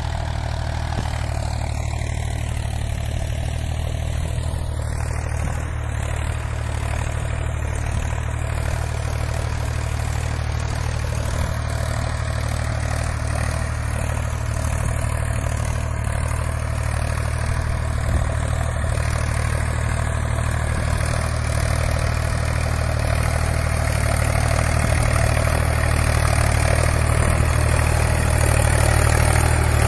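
Solis Yanmar 5015 4WD tractor's diesel engine running steadily under load as it drives a 7.5-foot rotavator through hard, grassy soil, growing louder near the end as the tractor comes closer.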